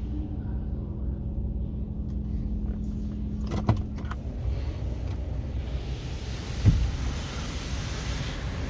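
A motor vehicle running with a low rumble and a steady hum. The hum stops about three and a half seconds in with a few clicks, and there is a single thump near the end.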